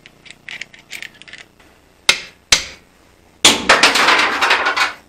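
Metal clinking and knocking as a lug nut stuck inside an impact-wrench socket is worked loose: light clicks at first, two sharp knocks about two seconds in, then a loud rapid clatter for about a second and a half near the end.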